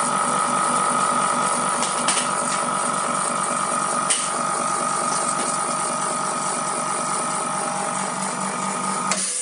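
TBK-408A OCA laminating machine's pump running steadily, a hum with a fast rhythmic pulse, pressurising the debubbling chamber to drive bubbles out of a laminated phone screen. It cuts off suddenly near the end.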